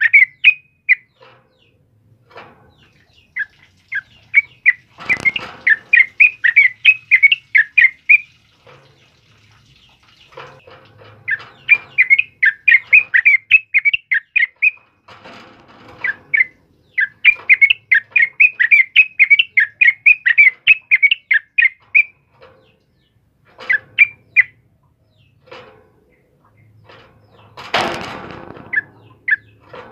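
Yellow-vented bulbul (trucukan) in a cage singing in full voice: runs of rapid chirping notes, several a second, in bursts broken by short pauses. Two brief rustling noises come about five seconds in and near the end.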